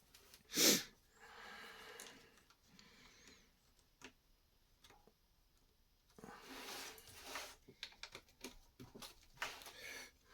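Plastic Lego pieces being handled and fitted: scattered light clicks and rustling, busiest in the second half. Just under a second in there is one short, loud breath-like hiss.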